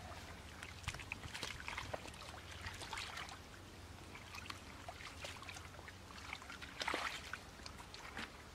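Hands groping through shallow muddy water and mud to feel for fish: irregular small splashes, sloshes and squelches, with one louder splash about seven seconds in.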